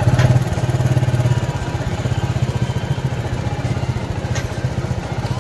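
TVS Star City Plus single-cylinder four-stroke engine idling steadily. The timing chain rattle is gone now that the chain has been tightened.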